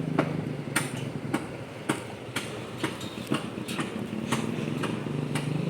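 A vehicle engine idling steadily, with a dozen or so sharp, irregular knocks from equipment being handled during loading.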